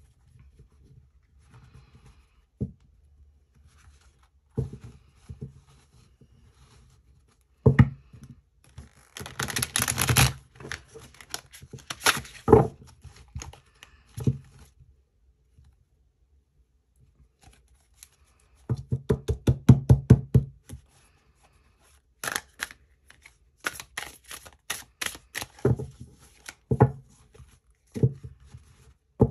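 A deck of tarot cards being shuffled by hand: runs of rapid card flutter as the deck is riffled and bridged, with single knocks and taps in between and short quiet pauses.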